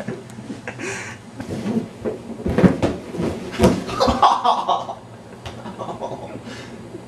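Several thumps and knocks with scuffling as a person tumbles off an inflatable exercise ball onto the floor. The sharpest knocks come two to four seconds in.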